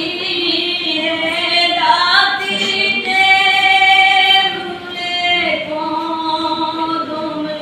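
Group of men's and women's voices singing together in unison without drums, holding long drawn-out notes that step to a new pitch every second or two.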